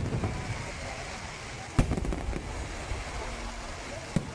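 Aerial fireworks display: a steady rumble and crackle of shells bursting, with one sharp bang about two seconds in and a few smaller pops.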